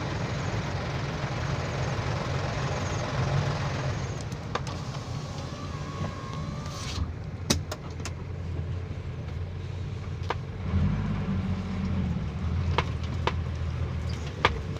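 Heavy diesel machinery engine running, picking up in revs about eleven seconds in, with a few sharp clicks.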